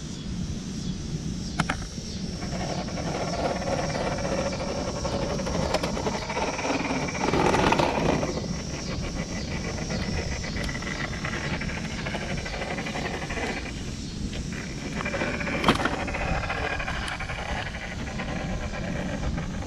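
Electric motor and gear drivetrain of an RC scale rock crawler whining as it crawls up tree roots, with tyres scrabbling on bark. It swells louder briefly about seven and a half seconds in, and a couple of sharp clicks stand out.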